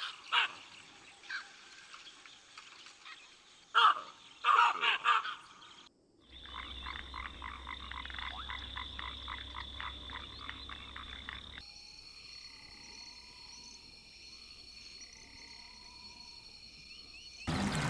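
A run of wild-animal ambiences. First come a few short, loud animal calls. Then, from about six seconds in, a rapid rhythmic croaking chorus of frogs at about four or five pulses a second. From about twelve seconds a steady high insect-like whine runs with faint bird chirps, and loud splashing comes in just before the end.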